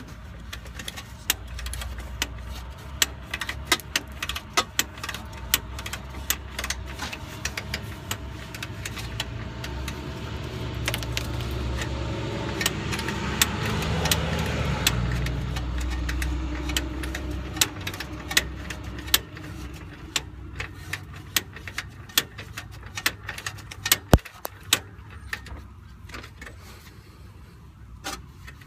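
Metal hand tool, most likely a ratchet, clicking in quick irregular strokes as a fastener on the driveshaft center support bearing is turned and adjusted. A vehicle's low rumble swells to its loudest in the middle and then fades away.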